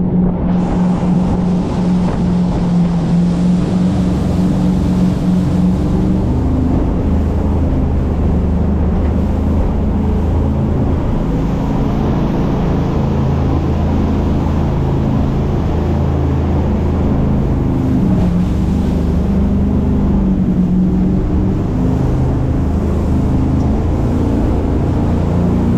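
Motorboat engine running steadily at speed, its pitch shifting a little now and then, over the rush of water and wind.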